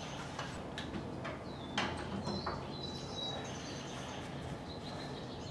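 A few light clicks and knocks of metal engine and frame parts being shifted by hand, the strongest about two seconds in, over faint high-pitched chirps.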